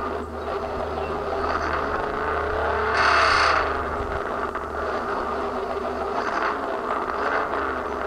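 1996 Ford F-150's 4.9-litre (300) inline-six running through a loud, straight-piped exhaust, idling with a rev about three seconds in and two shorter, smaller revs later on.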